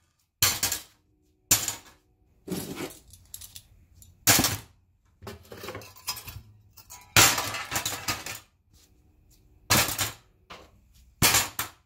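Sheet-steel pieces for the muffler being handled and worked, heard as a string of short metallic clanks and rattles with some ringing, about eight bursts cut apart by abrupt silences.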